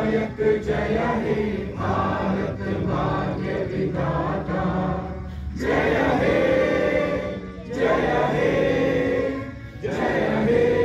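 A crowd of people singing together in unison, in long held phrases with short pauses between them.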